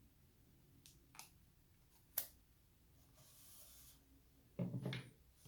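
A few sharp plastic clicks from handling a rugged phone case with a kickstand, the loudest about two seconds in, then a soft rubbing and a brief low knock near the end as the phone is set upright on its stand.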